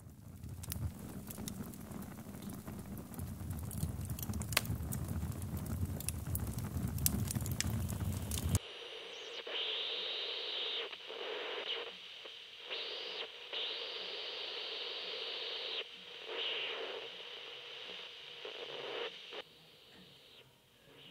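Radio static, a hiss full of crackles over a low rumble, which cuts off abruptly after about eight seconds. It gives way to a thin, tinny signal that comes and goes in bursts of a second or two, like a portable radio being tuned between stations.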